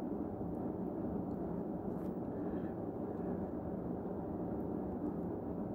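Steady low background rumble and hiss, with a couple of faint taps of a stylus on a tablet screen about two seconds in.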